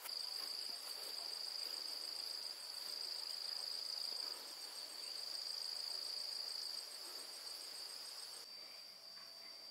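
Steady high-pitched trilling of insects, starting abruptly and dipping slightly a couple of times.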